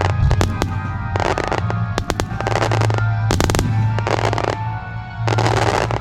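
Fireworks going off over music: a quick run of sharp bangs at the start, then a string of dense, rushing bursts about once a second, each lasting around half a second.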